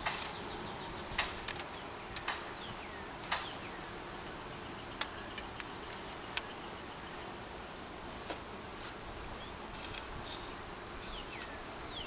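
Honeybees buzzing around an open hive, with scattered sharp clicks and taps from a wooden hive frame being handled.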